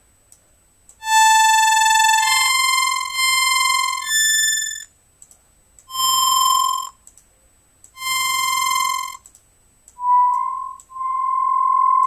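BitInvader wavetable synthesizer in LMMS playing a series of held notes pitched around 1 kHz, each about a second long with short gaps between them, its waveform redrawn between phrases. The early notes are bright and buzzy with many overtones; the last two are near-pure sine tones. Faint mouse clicks sound in the gaps.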